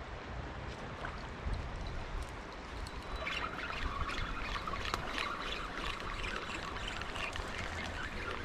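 River water trickling and splashing, with small irregular splashes growing busier about three seconds in.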